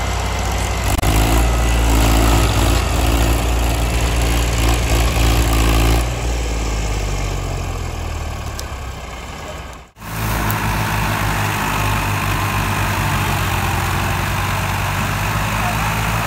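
Diesel engines of a Massey Ferguson 241 and a Farmtrac 60 tractor running steadily under load, hauling a heavily loaded sugarcane trolley in tandem. The sound cuts out for an instant about ten seconds in, then the engines run on.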